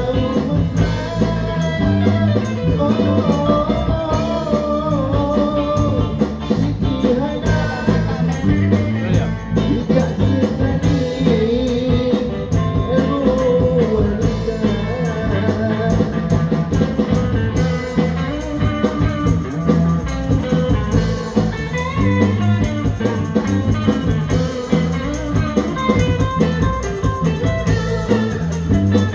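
Live busker band playing a 1960s-style Malay pop song: plucked guitars over a steady beat with rattling percussion and a melody line.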